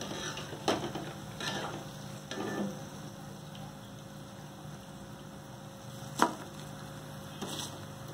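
Food frying in hot oil with a steady sizzle, while a spoon stirs and scrapes in the pan three times in the first few seconds. There is one sharp clink about six seconds in.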